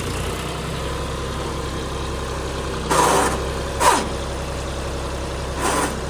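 Tractor engine idling steadily at a constant low pitch, with a few brief louder noises about three, four and nearly six seconds in.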